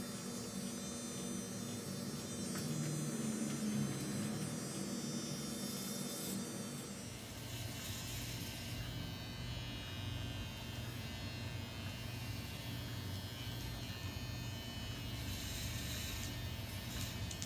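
Electric hair clippers buzzing steadily as they cut a child's hair. The buzz drops to a lower tone about seven seconds in.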